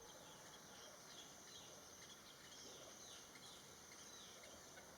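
Faint garden ambience: a steady high insect buzz, with a few short, faint falling chirps from small birds.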